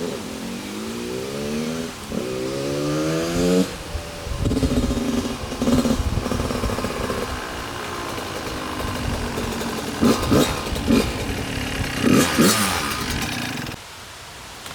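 Suzuki RM80 two-stroke dirt bike engine revving: two rising runs up through the revs in the first few seconds, then running unevenly with several quick throttle blips, cutting off suddenly near the end.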